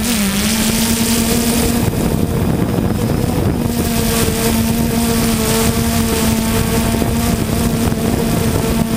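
Drone motors and propellers humming steadily, heard from the drone's own onboard camera, with wind rushing over the microphone. The pitch dips briefly just after the start, and the hum wavers for a second or so from about two seconds in before settling again.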